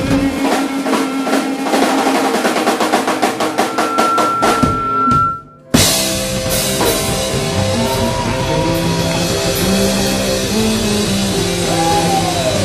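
Live rock band music. The drums play a fast roll that gets denser, then stop briefly about five seconds in. The full band then comes back in with a crash and held chords, bass notes and bending guitar notes.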